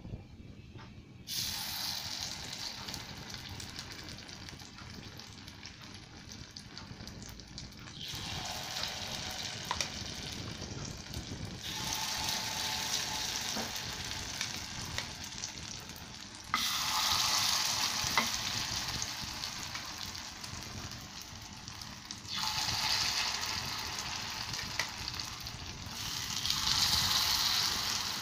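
Millet batter sizzling in hot oil as it is spooned into the cups of an appe pan. The hiss rises sharply with each new spoonful, about six times, and dies back a little between them.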